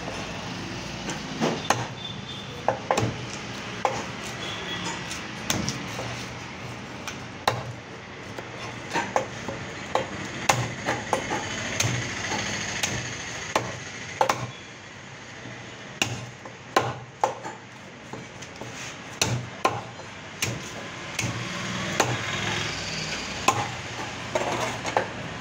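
A large fish-cutting knife chopping red snapper into steaks on a wooden block. The blade strikes the wood in irregular sharp knocks, often in quick runs of several, over a steady background noise.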